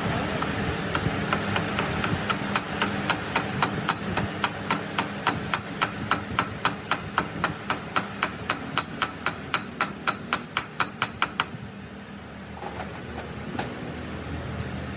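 Hammer striking metal in a steady run of about three blows a second, each blow with a short metallic ring; the hammering stops about eleven seconds in, followed by a couple of faint knocks.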